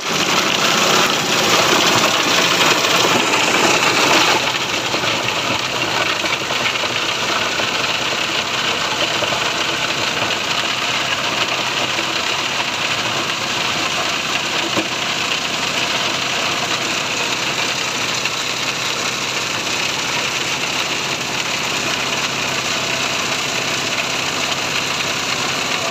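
A small stationary engine driving a fruit-and-vegetable pulping crusher runs continuously, with the whir and rattle of the crusher mixed into the engine note. It is louder and harsher for the first four seconds or so while a load of fruit is fed in and pulped, then settles to a steady run.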